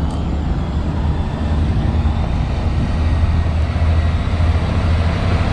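Large truck engine running steadily, a low rumble that grows slowly louder.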